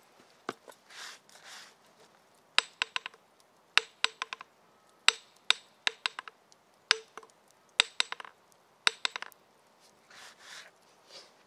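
Hammer tapping on metal in about seven short bursts of quick blows, each blow with a brief metallic ring. Soft rubbing swishes come before and after the hammering.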